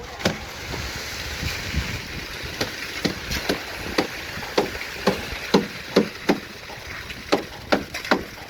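Repeated sharp knocks, sparse at first and then coming about twice a second, over a steady hiss.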